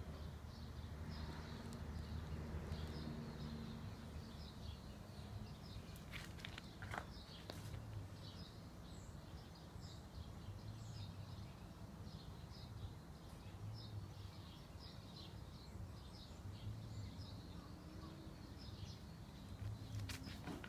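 Faint outdoor ambience: short high bird chirps repeating about twice a second over a low, steady rumble, with a few soft clicks.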